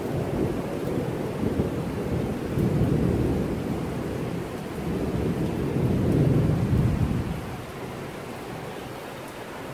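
Thunder rumbling over steady rain. The rumble swells about three seconds in and again, louder, about six seconds in, then eases off to a fainter rain hiss.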